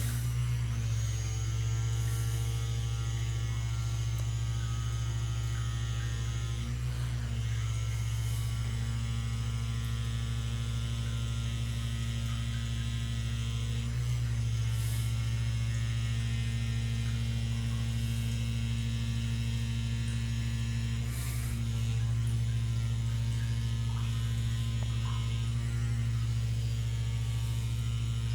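Handheld electric vibration massager running with a steady low electric hum, its tone shifting briefly every several seconds.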